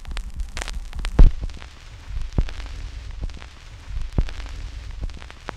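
Vinyl record surface noise: crackle and small pops over a low rumble, with a louder click recurring about every 1.8 seconds, the rate of a 33⅓ rpm record turning with the stylus in its run-out groove.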